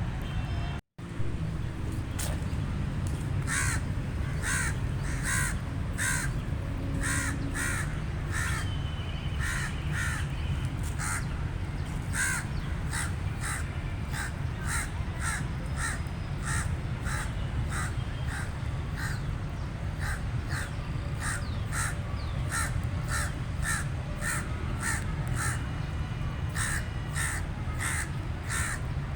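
Crow cawing over and over in a rapid series of short calls, about two a second, over a steady low rumble.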